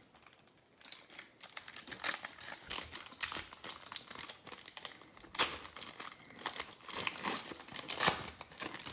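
A trading card pack wrapper being torn open and crinkled in the hands, in a run of crackles that starts about a second in, with louder sharp crinkles near the middle and near the end.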